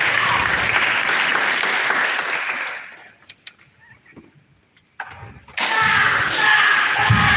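Audience in a large hall cheering and shouting loudly. The noise drops out to near silence for about two seconds midway, with a few faint clicks, then comes back abruptly.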